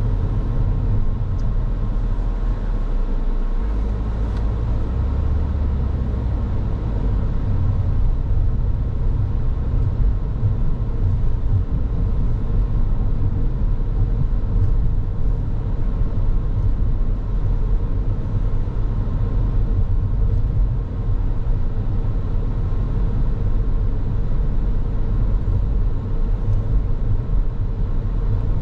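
Car driving along a road: a steady low rumble of tyres and engine that holds even throughout.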